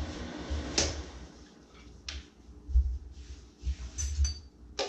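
Kitchen dishes and utensils being handled: a few separate knocks and clinks, with a short cluster of higher clinks near the end.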